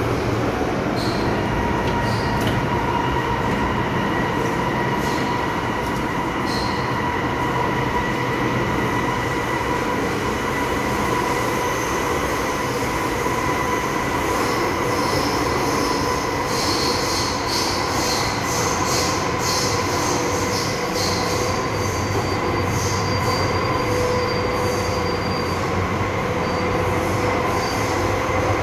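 MTR M-Train running through a tunnel, heard from inside the passenger car: a continuous rumble of wheels on rail with a steady whine. A high squeal of the wheels comes in past the middle and runs for several seconds.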